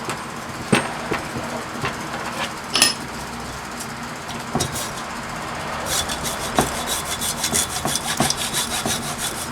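Hacksaw cutting through a small transformer clamped in a vise, to free its copper windings. A few scattered knocks and clicks come first, then the saw strokes start about six seconds in and go on in a quick, steady rhythm.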